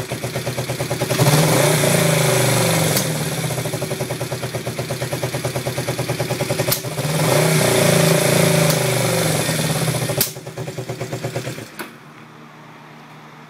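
Yamaha XS400 parallel-twin motorcycle engine idling roughly with an uneven, lumpy beat, typical of a misfire or carburettors out of balance. It is blipped twice, rising and falling in pitch, and stops about twelve seconds in.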